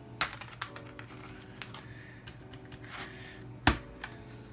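Plastic keycaps being pushed onto mechanical keyboard switch stems: a scatter of light clicks and one loud snap about three and a half seconds in, as tight-fitting caps are forced on.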